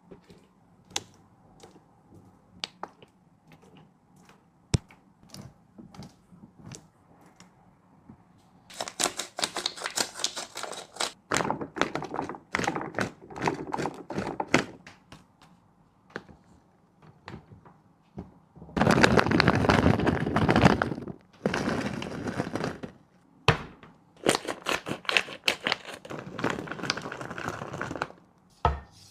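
Dog eating: scattered clicks and taps at first, then several spells of rapid chewing, the loudest about two-thirds of the way through.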